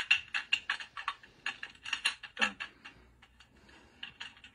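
Rapid metallic clicks and clacks of M16A2 rifle parts being handled and snapped together during a fast reassembly. The clicks come several a second at first and thin out after about two and a half seconds.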